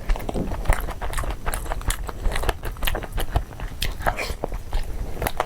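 Close-miked eating sounds: a person chewing and biting with many quick, wet mouth smacks and clicks, several a second.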